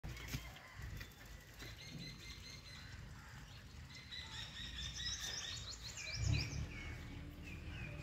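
Small birds chirping, with short repeated notes that grow busier in the second half and include quick falling chirps. Under them is a steady low rumble that swells briefly a little after six seconds.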